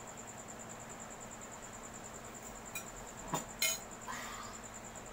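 A cricket trills steadily at a high pitch with an even pulse. About three and a half seconds in come a few short sharp noises, the loudest a brief clatter, followed by a short voiced sound.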